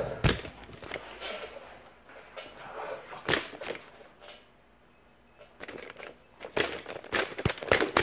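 Handling noise on a camera held close: scattered knocks, clicks and rubbing, with a quiet stretch in the middle and a quick run of knocks near the end as the lens is covered.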